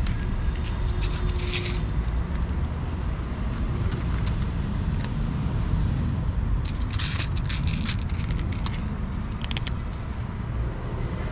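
Cats crunching dry kibble, short crisp crunches coming in clusters, over a steady low rumble.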